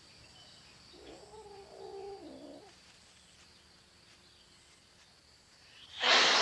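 Manx cats in courtship: a wavering, drawn-out yowl about a second in, then a loud, sharp hiss near the end as a cat rebuffs the other. Insects chirr faintly and steadily underneath.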